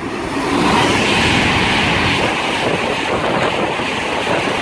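Class 390 Pendolino electric train running through the station at speed without stopping: a steady rush of wheel and air noise that swells about a second in.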